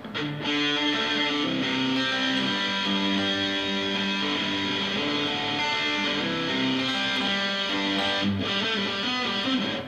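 Background music: guitar-led instrumental with held chords and plucked notes, cutting off suddenly at the end.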